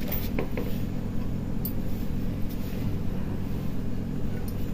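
Steady low background rumble, with a few faint clicks about half a second in.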